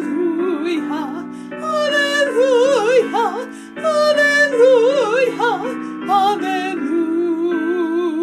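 A woman singing a hymn's 'alleluia' refrain with vibrato, several alleluias in a row, over steady held keyboard chords.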